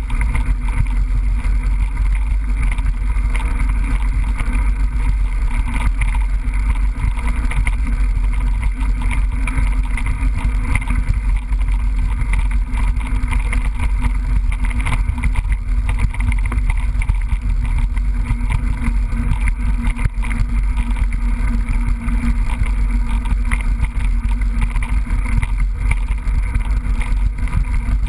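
Steady low wind rumble and rattle picked up by a GoPro action camera riding on a mountain bike as it rolls along a trail. Small knocks run through it all along.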